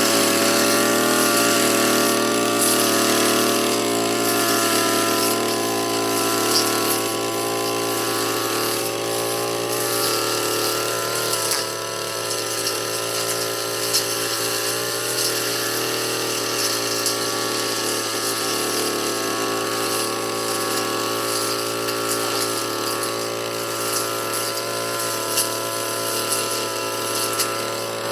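Brush cutter engine running steadily at working speed, its pitch wavering slightly.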